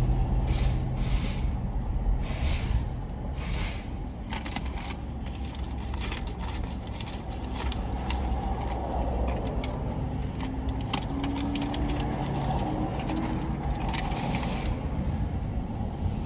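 Steady low rumble of a car's idling engine, with repeated short hisses of an air hose filling a tire.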